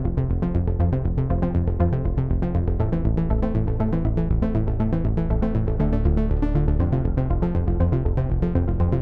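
Electronic background music with a synthesizer over a fast, steady beat.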